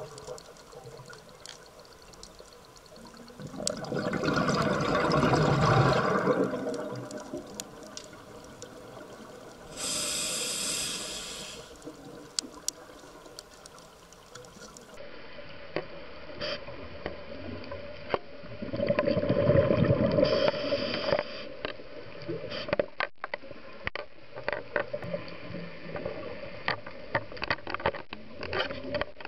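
Scuba regulator breathing heard underwater: two long rushes of exhaled bubbles, about four and nineteen seconds in, and a hiss of inhaled air around ten seconds in, over scattered sharp clicks.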